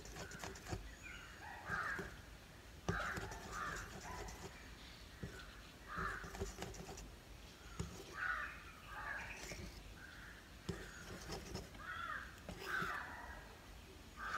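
Crows cawing repeatedly in short harsh calls, several in quick runs. Under them, faint clicks and scraping from a wire whisk beating batter in a ceramic bowl.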